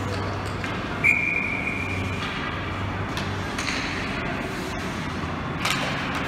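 A hockey puck hitting the metal goal post: a sharp clank about a second in that rings on as one clear ping and fades over about two seconds, over steady ice-rink hum. A second sharp knock of stick or puck comes near the end.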